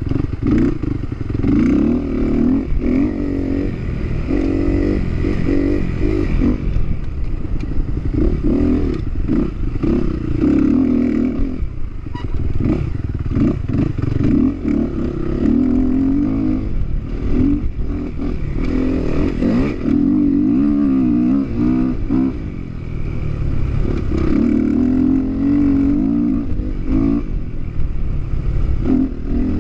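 Dirt bike engine at full effort, its pitch climbing and dropping over and over as the rider works the throttle and shifts gears, with frequent knocks and rattles from the bike over the rough ground.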